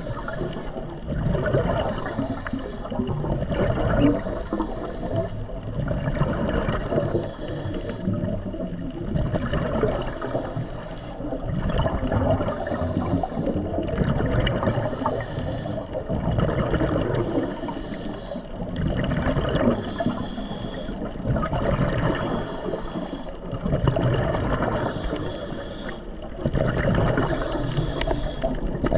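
Underwater rush of water and air bubbles, surging about every two seconds over a steady low sloshing.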